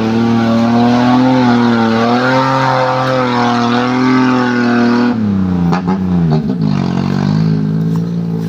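Suzuki Multicab mini truck's engine running at high revs, its pitch wavering, then dropping sharply about five seconds in as the revs fall, with a few knocks. It then settles to a steady lower speed.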